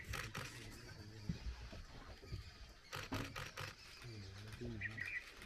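Camera shutters firing in quick bursts: a run of clicks at the start and another about three seconds in. Low murmured voices follow, and a bird gives a short chirp near the end.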